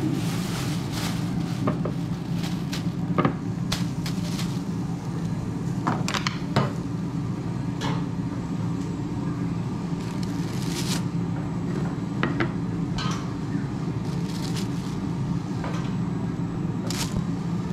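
A plastic bag crinkling and rustling in short, sharp crackles as roasted chiles are handled in it, over a steady low hum.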